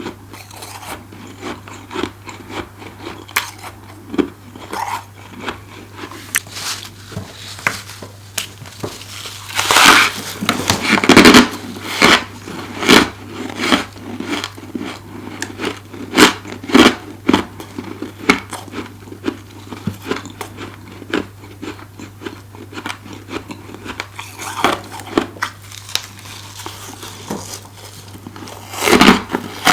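Close-miked biting and chewing of freezer frost, many small crisp crunches, with louder bursts of crunching about a third of the way in, a little past the middle and again near the end. A faint steady low hum runs underneath.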